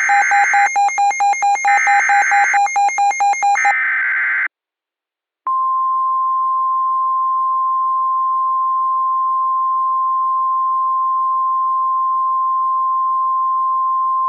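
Emergency Alert System broadcast tones. First comes a buzzy digital data burst with rapid beeping, about four seconds long. After a second's gap a single steady 1050 Hz weather-radio warning alarm tone begins and holds, signalling that a new tornado warning message follows.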